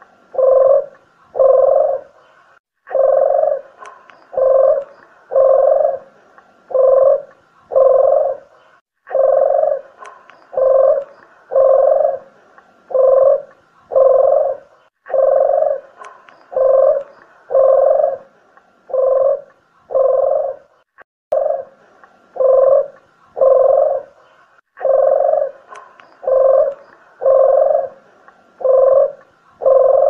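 Spotted dove (tekukur) cooing as a bird-lure call: runs of low hooting notes, about one and a half a second, broken by short pauses every five or six seconds.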